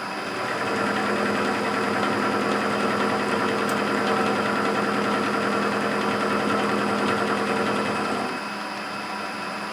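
A Clausing 8520 milling machine runs with its cutter taking a steady pass across the flat of a T-nut, a level machine note with a hum. About eight seconds in the cutting sound drops away and the spindle keeps running quieter.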